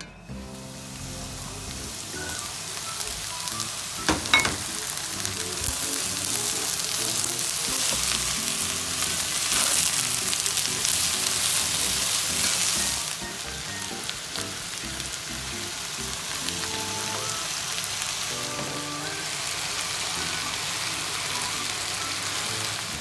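Brinjal and potato cubes sizzling in hot oil in a frying pan as they are stirred with a spatula. The frying hiss builds over the first several seconds, eases somewhat about halfway through, and carries one sharp knock about four seconds in.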